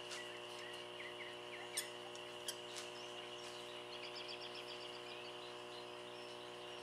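Faint background of a steady electrical hum with a high insect-like whine, small bird chirps in the first second and a quick bird trill about four seconds in. A few light clicks, as of a small metal hand tool being handled.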